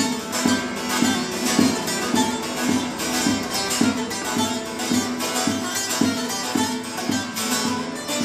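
Bağlama (long-necked Turkish saz) played solo: a quick run of plucked notes with strong strokes a little under twice a second, over a steady ringing low note from the open strings.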